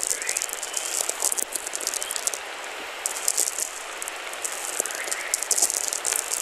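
Auroral chorus: plasma waves in Earth's magnetosphere recorded by the THEMIS spacecraft and played back as audio, a dense crackling hiss with a few faint rising chirps through it.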